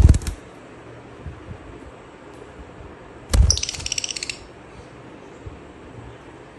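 A lutino rosy-faced lovebird flapping in a wire cage: a burst of wing beats with low thumps at the start. About three and a half seconds in comes a heavy thump as it lands against the cage bars, followed by about a second of rapid high-pitched clinking.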